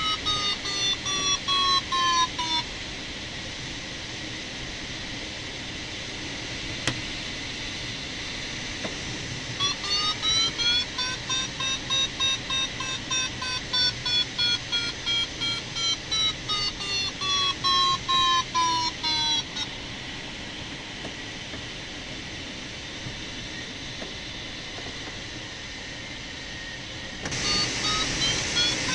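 Glider audio variometer sounding quick pulsed beeps whose pitch rises and then falls, signalling climb. It comes in three stretches: at the start, from about ten to twenty seconds in, and again near the end. Between them there is a steady hiss of airflow past the cockpit canopy.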